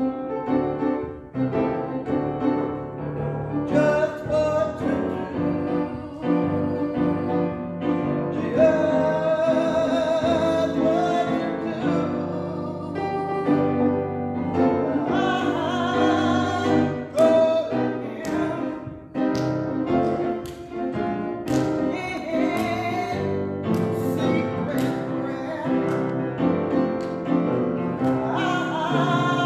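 Two women singing a sacred song with vibrato, accompanied by a keyboard.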